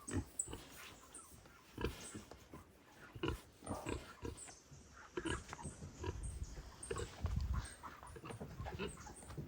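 A large pig grunting in short, irregular grunts.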